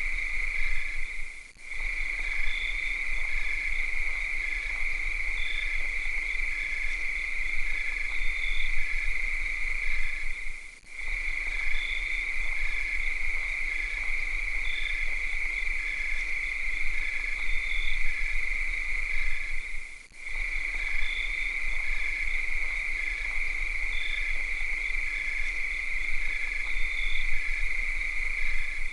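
Cicada chorus at night: a steady, high-pitched drone with faint short chirps repeating over it. The drone dips briefly three times, about nine seconds apart.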